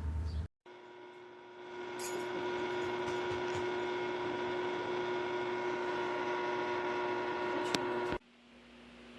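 Electric tower fan running: a steady motor whine over a rush of air. It comes in after a brief silence, picks up a little about a second later, and cuts off suddenly near the end.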